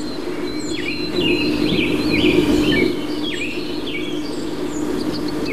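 Birds chirping again and again in short, quickly sweeping calls, over a steady low hum from the old Sony Betacam SP camcorder's tape deck (VTR) running. The deck is worn and noisy, and its own microphone picks up the hum.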